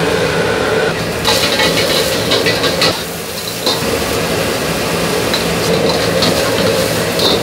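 Restaurant kitchen clatter: dishes and utensils clinking over a steady machine hum, busiest about one to three seconds in.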